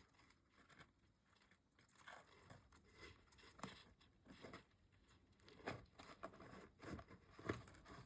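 Pet hedgehog chewing crunchy food: faint, irregular crunches and clicks, a few louder bites among them.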